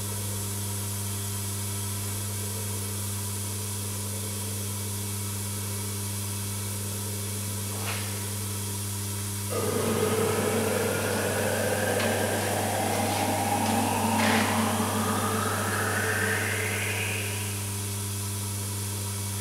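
A steady electrical hum, then about halfway in the radio-controlled clamshell grab's hydraulic power unit starts with a click and runs with a whine that rises in pitch as the two jaws swing open, stopping shortly before the end.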